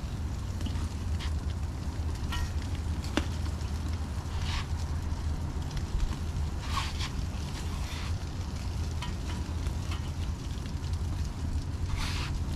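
Food sizzling on a grill, with scattered short crackles and brief spurts of hiss. A steady low rumble runs underneath.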